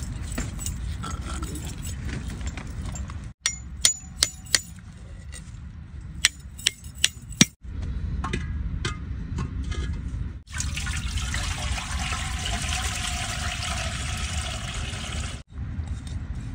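Raw fish being cut up with a knife, with a run of sharp knocks, about seven, as of a blade chopping. A few seconds of steady rushing hiss follow. Low wind rumble on the microphone throughout.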